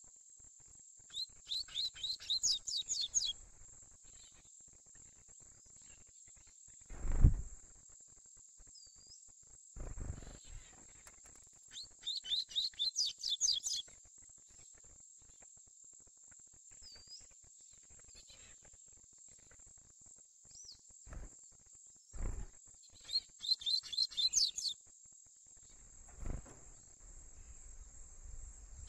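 Young double-collared seedeater (coleiro) singing its 'tui-tui' song: three short phrases of rapid, high, repeated notes, about ten seconds apart. A steady high-pitched hum runs behind, and a few low thumps fall between the phrases, the loudest about seven seconds in.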